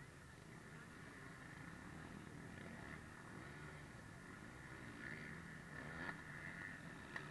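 Faint engines of several off-road motorcycles, rising and falling in pitch as they rev.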